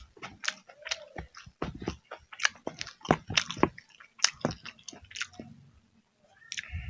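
Close-miked chewing of crunchy food: many quick, irregular crunches and wet mouth sounds, with a short lull near the end.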